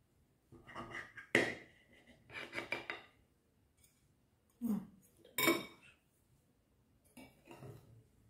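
Metal knife and cake server clinking and scraping against a ceramic cake plate and bowl as a cake is cut and a slice lifted. It comes as a string of separate short clinks, one sharp clink about a second and a half in ringing briefly, the loudest pair around the middle.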